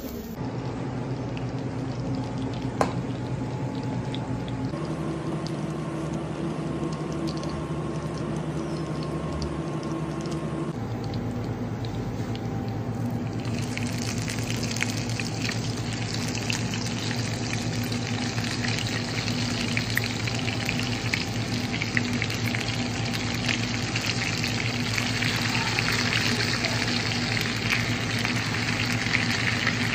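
Melted butter sizzling and crackling in a hot clay pan around seed-crusted fish, setting in about halfway through, over a steady low hum.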